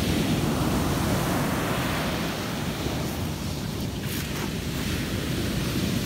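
Rough sea surf breaking and washing up a sandy beach: a steady rushing roar of waves.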